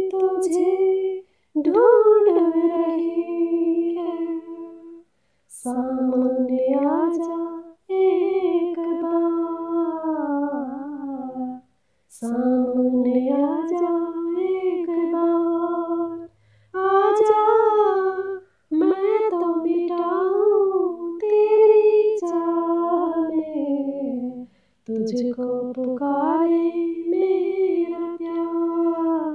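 A woman singing a slow, unaccompanied melody, in about eight phrases with short breath pauses between them.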